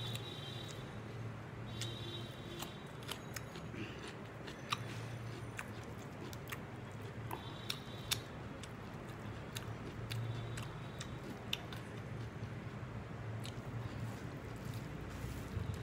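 Close mouth sounds of a person eating: biting and crunching into a fresh cucumber slice and chewing rice and meat, with many short wet clicks and smacks scattered throughout. A low steady hum runs underneath.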